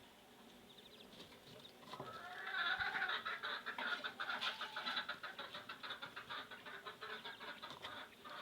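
Quail calling in a rapid run of chirps, starting about two seconds in and going on for about six seconds, ending with a sharp click.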